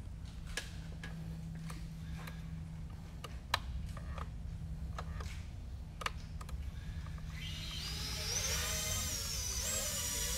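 A few sharp clicks, then about seven seconds in the repaired GEPRC Baby Croc 4 quadcopter's brushless motors spin up with a high whine that rises and shifts in pitch: the drone is running again on its test after a flight-controller replacement.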